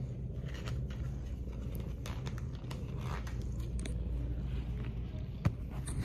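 Handling noise of a phone held close against a hand: fingers rubbing and scraping near the microphone, with scattered small clicks and one sharp tap about five and a half seconds in, over a steady low rumble.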